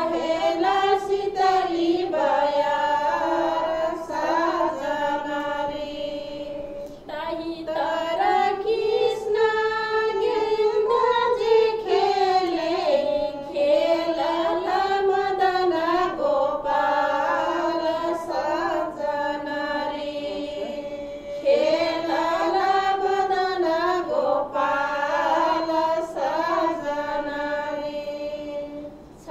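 Women singing a Tharu-language coronavirus-awareness folk song, a continuous melody of long, held and gliding notes.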